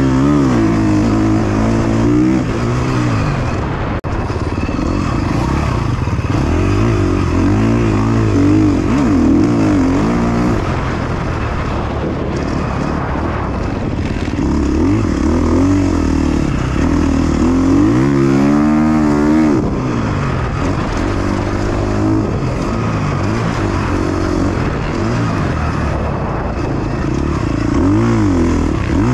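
KTM 350 XC-F single-cylinder four-stroke dirt bike engine being ridden hard, heard from a helmet-mounted camera. Its pitch repeatedly climbs and drops as the throttle opens and closes through the gears, with a quick wavering in pitch about two-thirds of the way through.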